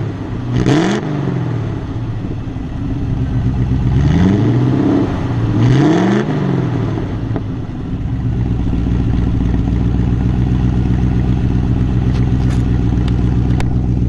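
Rover 3.5-litre V8 of a 1982 Rover 3500 Vanden Plas, heard at its tailpipe, being revved in neutral. There is a quick blip about a second in, a slower climb in revs around four to five seconds, and a sharp blip at about six seconds. From about eight seconds it settles into a steady idle.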